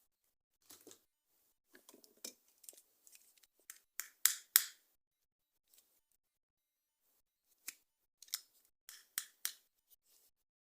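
Plastic toy and packaging being handled: scattered sharp clicks and brief rustles, with the two loudest clicks close together about four seconds in and another cluster of clicks later on.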